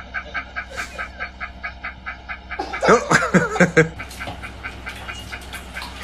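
A man's rapid laughter, about six or seven pulses a second, turning louder and more varied about two and a half seconds in.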